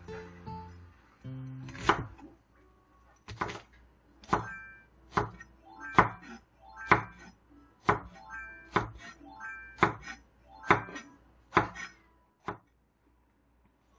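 Chef's knife chopping onion and green onion on a wooden cutting board: about a dozen sharp, evenly spaced strokes, roughly one a second. Short electronic beeps from a child's handheld game console sound between the strokes, in time with the chopping.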